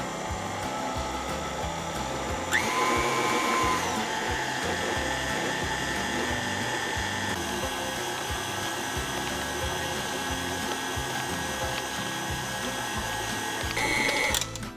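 Stand mixer running with a dough hook, kneading bread dough: a steady motor whine that rises in pitch and gets louder about two and a half seconds in, then settles. The motor cuts off near the end.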